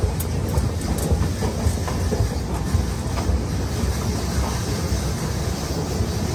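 Steady low rumble of an underground train in a deep station, with a few faint clicks.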